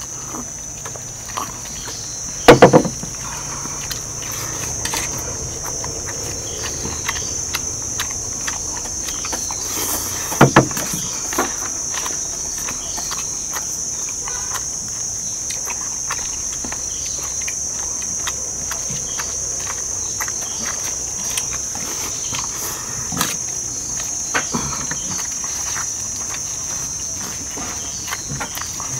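A steady, high-pitched drone of insects, with scattered light clicks and two louder, ringing clatters about two and a half and ten and a half seconds in.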